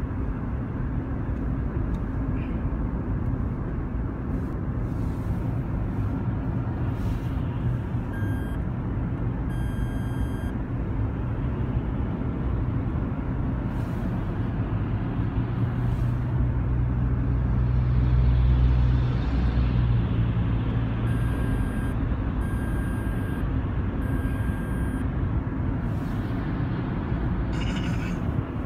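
Toyota Sienna corner sensor warning beeping abnormally in short bursts, twice about a third of the way in and three times about two-thirds in. Underneath is the steady road and engine noise of the van driving on the highway, heard from inside the cabin.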